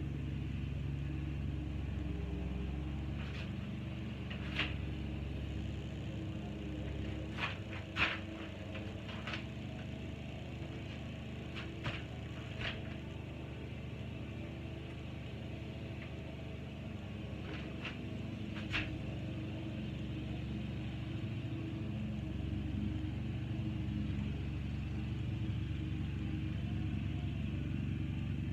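An engine running steadily with a low rumble, with a handful of short, sharp clicks and knocks over it, the loudest about eight seconds in.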